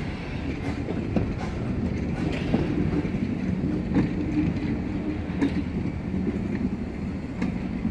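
Passenger coaches of a steam-hauled train rolling slowly along the track, with scattered sharp clicks from the wheels over the rails.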